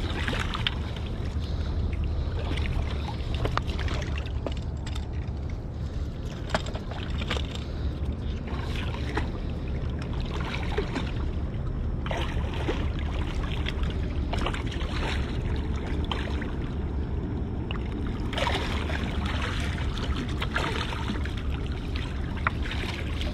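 Water splashing and sloshing in the shallows as a hooked blue catfish is worked to the rocks and scooped into a landing net, with heavier splashing about halfway and again near the end. A steady low rumble runs underneath.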